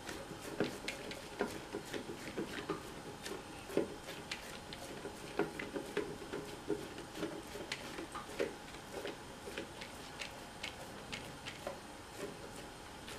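Fingers patting and pressing soft wheat-flour roti dough flat on an oiled banana leaf: faint, irregular soft pats and taps.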